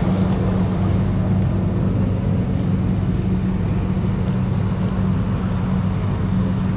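Roll-off truck's engine idling steadily, a low even hum that does not change.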